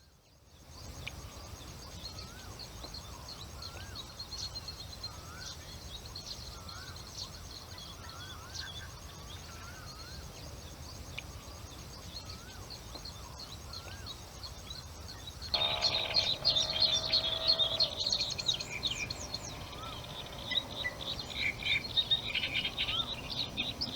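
Wild birds calling: short rising chirps repeated every second or so over faint higher notes, then about fifteen seconds in a louder, busier chattering of many birds starts suddenly.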